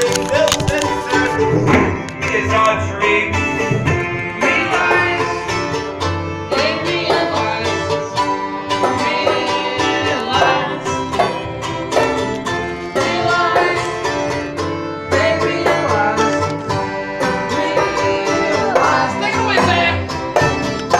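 Live string band playing a bluegrass-style tune, with banjo and acoustic guitar picking over accordion and washtub bass.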